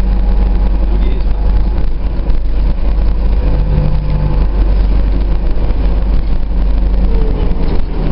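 Interior running noise of an Optare Versa single-decker bus: a steady low diesel engine rumble with a constant hum and rattle, heard from inside the passenger cabin.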